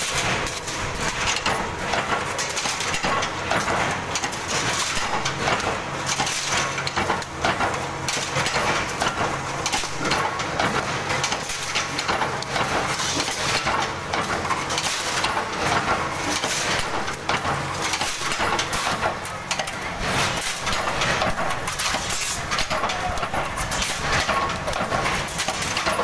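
Aluminium sheet being handled and cut in a power press die for ceiling fan blades: a continuous, irregular clatter of metallic clanks, rattles and knocks.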